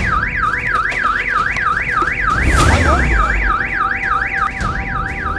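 Car alarm sounding: a loud, fast up-and-down electronic warble, about four sweeps a second, set off while the car is being pried open. A heavy thud with a low rumble comes about two and a half seconds in, and the alarm cuts off suddenly at the end.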